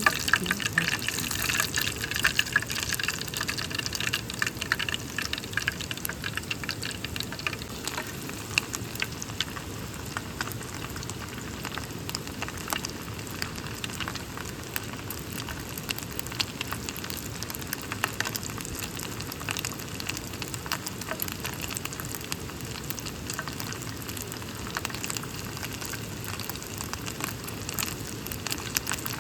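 Food frying in a pan: dense, irregular crackling and sizzling over a steady hiss, a little busier in the first few seconds.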